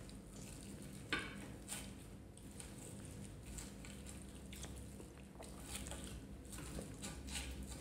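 Edge of a spoon sawing and pressing through a cooked ribeye steak on a slate board: soft squishing of the meat with scattered light clicks and scrapes. The sharpest click comes a little past a second in.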